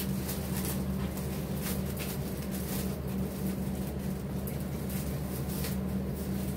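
Steady low hum of a running window air conditioner, with faint rustles of silk saree fabric being handled close to a clip-on microphone.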